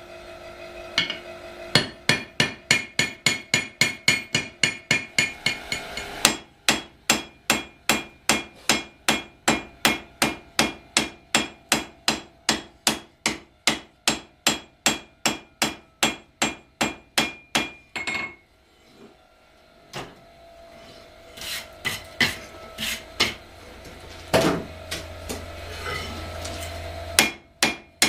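Hand hammer striking hot steel on an anvil while forging a froe, in steady blows of about two and a half a second with a bright ring on some strikes. The blows stop for a couple of seconds past the middle, come back as a few scattered strikes, and turn steady again near the end.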